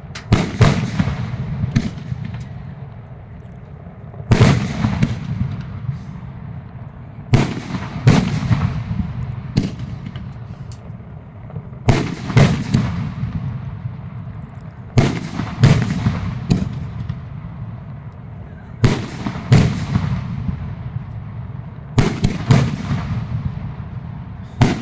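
Fireworks going off: a series of sharp booms, one every two to three seconds and often in close pairs, each with a trailing echo.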